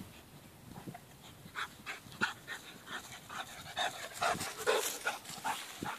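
Chocolate Labrador retriever panting in short breaths, about two or three a second, growing louder as the dog comes close.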